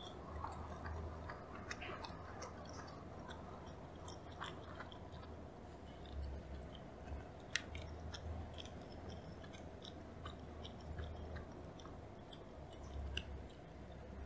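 Close-miked chewing of a mouthful of sushi: soft, wet mouth clicks and smacks, scattered irregularly over a low steady hum.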